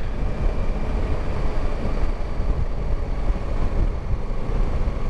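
Steady rush of riding wind and the low rumble of a Honda Africa Twin cruising at road speed, heard from the rider's seat.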